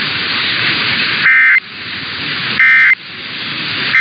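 Emergency Alert System end-of-message data bursts: three short, buzzy digital tone bursts about 1.3 seconds apart, the last starting at the very end, over steady radio static hiss. They mark the close of the test message.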